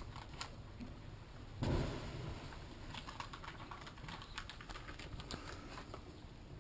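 Small wood fire crackling with irregular sharp pops, over a low rumble that swells about one and a half seconds in.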